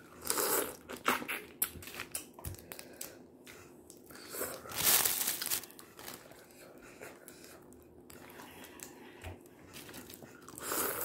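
Boiled crawfish being cracked and peeled by hand, with the crinkle of the paper and plastic bag beneath them, in irregular bursts; the loudest come near the start, about five seconds in, and at the end.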